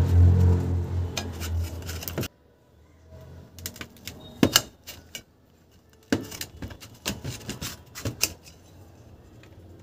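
Knife blade clicking and tapping against a stainless-steel plate while a peeled brinjal is sliced lengthwise into thin strips, in scattered sharp knocks. A steady low hum runs under the first two seconds and cuts off abruptly.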